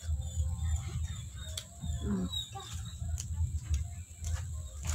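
A person chewing crispy roast-pig (lechon) skin, with a few sharp crunches over a steady low hum.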